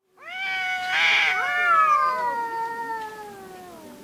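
Two domestic cats caterwauling at each other in a standoff: long, drawn-out yowls that slowly fall in pitch, two wails overlapping, with a harsher burst about a second in. These are threat calls of cats squaring off to fight.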